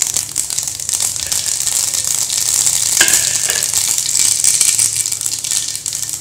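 Mustard seeds sizzling and crackling in hot oil in a nonstick frying pan, a dense run of tiny pops.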